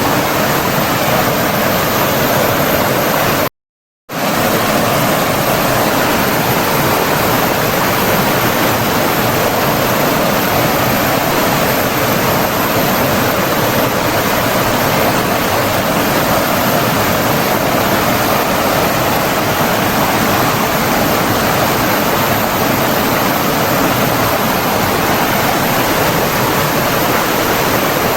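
Steady rushing of flowing water, like a stream or small waterfall, with an even hiss and no distinct splashes. The sound cuts out completely for about half a second, about three and a half seconds in, then resumes unchanged.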